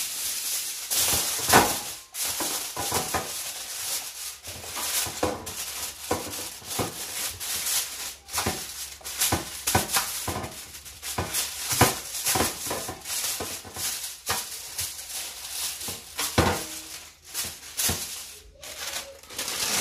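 Aluminium foil crinkling and rustling as it is unfolded by hand and pressed into a metal roasting tray, a dense run of irregular crackles with a few louder ones.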